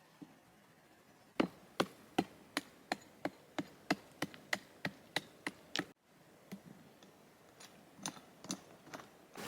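A hand tool striking wood in quick, even blows, about a dozen strikes at nearly three a second, followed after a cut by fainter, irregular knocks.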